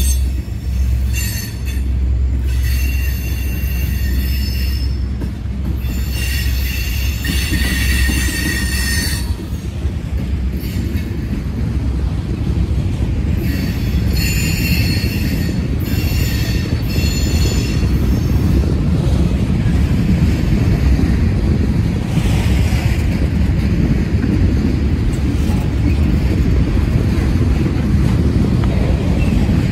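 Empty coal train's steel cars rolling past on the rail with a steady low rumble. High-pitched wheel squeal comes and goes through the first half, then fades while the rumble grows a little louder.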